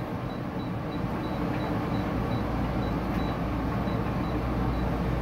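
Steady mechanical hum of a commercial refrigerator's refrigeration unit running, with the low hum growing louder about two seconds in, and a faint, even ticking about three or four times a second.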